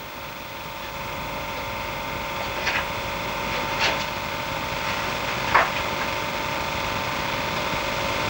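A steady hum that slowly grows louder, with three short scratching strokes of writing on paper near three, four and five and a half seconds in.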